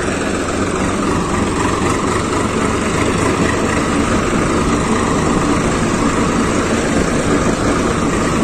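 Swaraj 855 tractor's three-cylinder diesel engine running steadily while the tractor drives along.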